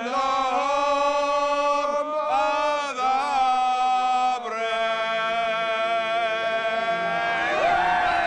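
Chant-like singing laid over the picture as background music: long held sung notes that change pitch every second or two.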